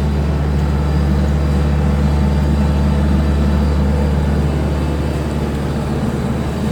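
CAT AP300 asphalt paver's Cat C3.3B diesel engine running at a steady working speed, a loud, even low hum.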